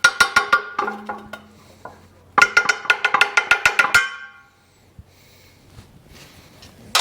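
Rapid metallic strikes, about eight a second, each ringing with a bell-like pitch, in two runs of a second or so. A single sharp knock comes near the end.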